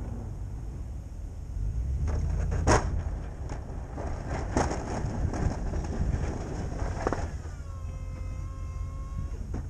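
Pickup truck engine running steadily while plowing, with several sharp knocks and clunks from the V-plow blade working the snow and pavement, the loudest a few seconds in. Near the end the plow's electric hydraulic pump whines steadily for about two seconds while the blade is repositioned, then stops.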